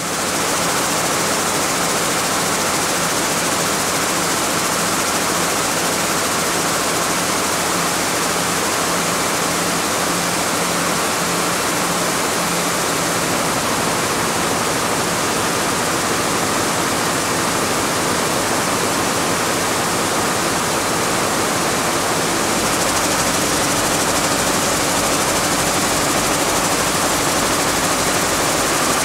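A hall of Picanol weaving looms running at full production: a loud, steady, dense hiss and clatter. A faster low pulsing from the nearest loom comes up in the last few seconds.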